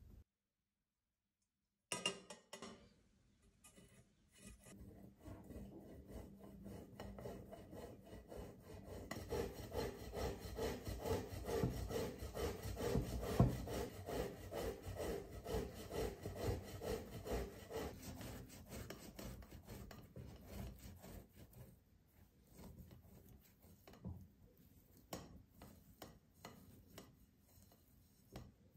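Potato rubbed back and forth on a hand grater: a fast run of rasping strokes that grows louder, holds for a stretch, then thins out toward the end. A sharp knock comes about two seconds in, before the grating starts.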